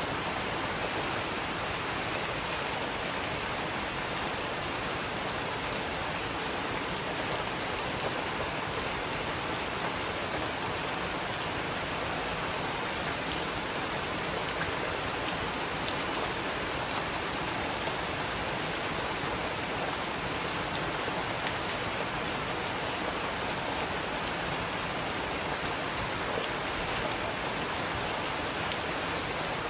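Steady rain hiss, with a few sharp pops of a crackling wood fire now and then.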